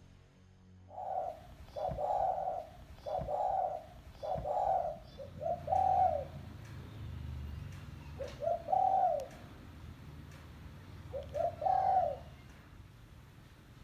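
Spotted dove (tekukur) cooing: four coos about a second apart, then three two-part phrases, each a short note followed by a longer coo, spaced a few seconds apart.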